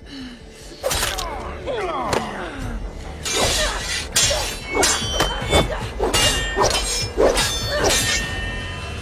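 Steel blades clashing in a sword fight: one sharp strike about a second in, then a quick run of about a dozen blade-on-blade clashes from about three seconds in, each ringing briefly.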